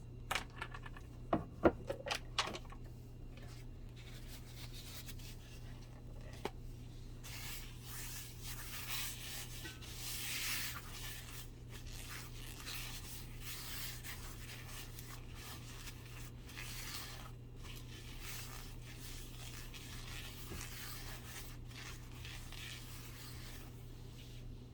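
Dry rubbing and scraping from hands-on food preparation, with a few sharp knocks in the first couple of seconds.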